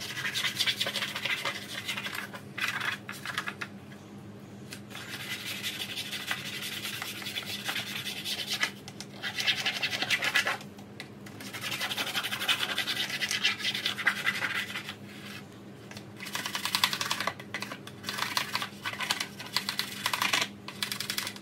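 Hand scrubbing of a rust-stained tackle box tray: spells of quick back-and-forth rubbing strokes, broken by short pauses.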